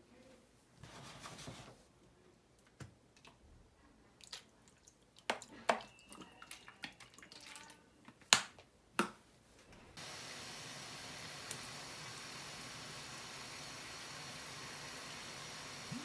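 Kitchen handling sounds: a scatter of light clicks and knocks from utensils or dishes, several sharp ones close together. About ten seconds in, a steady even hiss starts and runs on.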